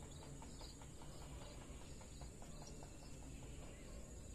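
Faint rice-field ambience: a steady high insect hum, with light ticking at about three to four a second.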